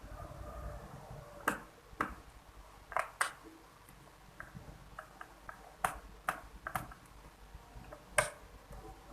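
Irregular sharp clicks and taps, about eight loud ones with fainter ticks between, from hands and tools working on the underside of a Lenovo IdeaPad 330 laptop while its bottom-cover screws are taken out.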